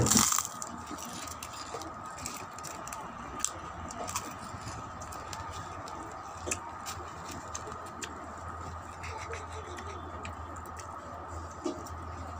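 A clear plastic bag of chicharon being handled, crinkling loudly for a moment at the start, then giving scattered small crackles as it is moved about.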